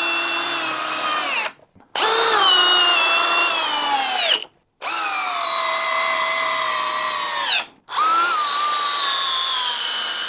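Cordless hammer drills driving 8-inch Timberlock screws, one drill after another: the end of one run, then three more runs of about two and a half seconds each, cut together. Each run is a high motor-and-gearbox whine that drops slowly in pitch as the long screw sinks and the load builds, then winds down when the trigger is released.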